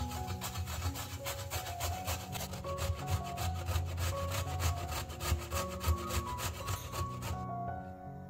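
A raw carrot being grated on a stainless steel box grater: quick, even rasping strokes, about five a second, that stop near the end. Soft background music plays underneath.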